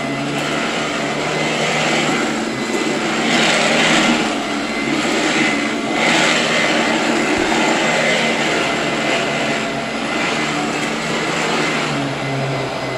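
Royal 18-inch upright vacuum cleaner running, a steady motor and airflow noise that swells and eases a few times.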